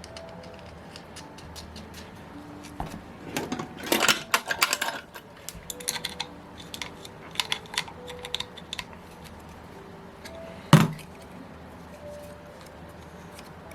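Small metal parts and tools clinking and clicking while a propeller is fitted to a model glow engine. There is a quick flurry of light clinks a few seconds in, scattered clicks after that, and one sharp knock about eleven seconds in.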